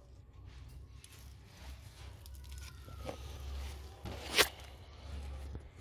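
Machete blade working in a lengthwise split down a soft young papaya trunk, with a smaller sharp knock about three seconds in and one loud, sharp hit a little past four seconds in.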